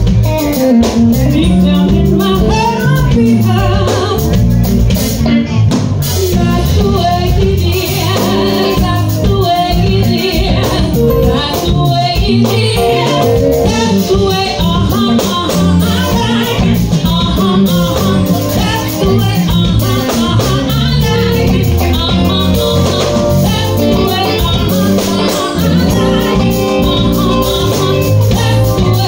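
Live band playing with a woman singing lead into a microphone over keyboard, guitar and drum kit, amplified through a PA.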